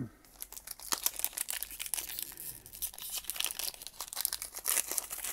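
Foil wrapper of a Pokémon card booster pack crinkling as it is handled and torn open: a dense run of crisp crackles.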